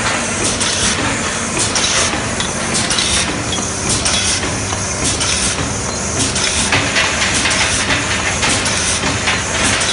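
Automatic aerosol valve feeder and inserter machine running, with a steady dense clatter of many quick irregular clicks and a hiss of air.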